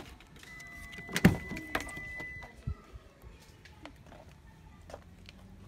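Car door handle pulled and the door latch releasing with a loud clunk about a second in, then a lighter click as the door swings open. A thin steady high tone sounds for about two seconds alongside.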